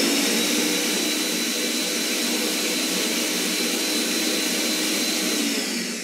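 Countertop blender motor running at full speed, pureeing hot tomato soup. Near the end it is switched off and begins to wind down with a falling whine.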